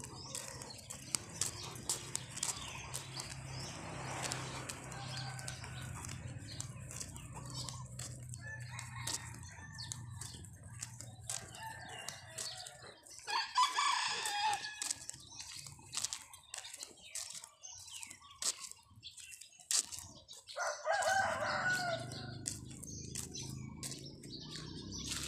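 A rooster crowing twice, once about halfway through and again a few seconds later, over scattered short clicks and taps.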